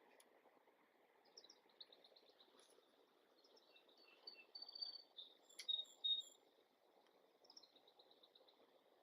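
Small birds chirping and trilling in quick high runs, loudest in the middle, over a faint steady background hiss.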